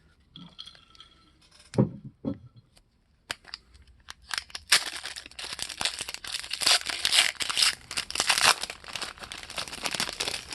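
Trading card pack wrapper being torn open and crinkled by hand. After a few light clicks, a dense, steady crackling starts about halfway in and continues.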